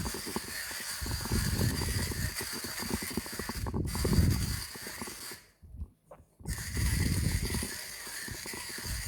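Timemore Chestnut Slim hand coffee grinder crunching coffee beans as the crank turns, in repeated swells of dense crackling, broken by a near-silent gap of about a second just past the middle.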